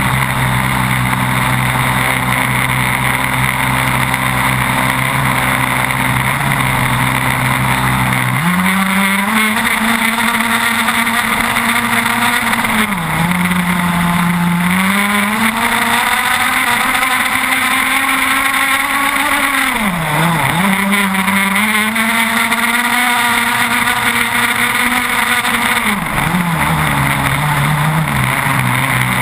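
30cc two-stroke petrol engine with a tuned pipe, running in an RC catamaran racing boat and heard from an onboard camera. It runs steadily, climbs to a clearly higher pitch about eight seconds in, dips briefly a few seconds later, dips sharply about two-thirds of the way through, then settles lower near the end. Spray and rushing water come through under it.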